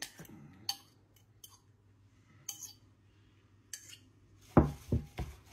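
Scattered light clinks of a kitchen utensil against a dish, then a few dull thumps near the end as the container of dressed arugula is handled.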